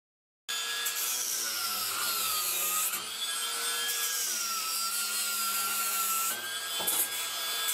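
Cordless angle grinder grinding off protruding bolt ends. A continuous whine drops in pitch while the disc bites into the bolts and rises again as the load eases.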